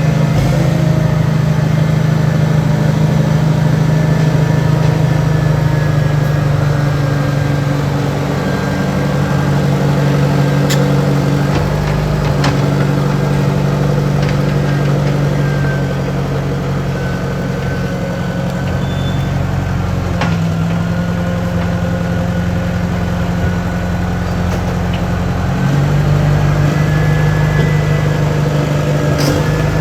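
Compact track loader's engine running steadily while digging, its pitch shifting a few times as the load changes, with a few sharp metallic knocks.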